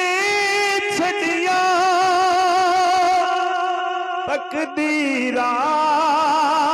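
A man sings a Punjabi naat into a handheld microphone, drawing out long held notes with a wide vibrato and stepping down to a lower held note about five seconds in. A steady held tone sounds beneath the voice.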